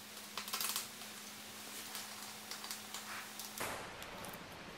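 Faint small clicks and light taps of fingers handling screws on a steel piano hinge laid along a plywood cabinet door, over a faint steady hum that stops about three and a half seconds in.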